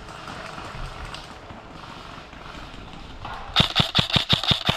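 An airsoft gun fires a rapid burst of about ten shots, starting about three and a half seconds in.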